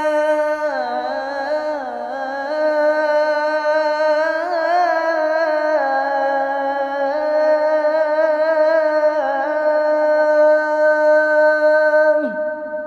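A man's voice singing the adhan in the Nahawand mode, drawing out "hayya ʿala-s-salah" in one long melismatic line with wavering ornaments. The held note breaks off with a downward slide near the end, leaving a faint lingering echo.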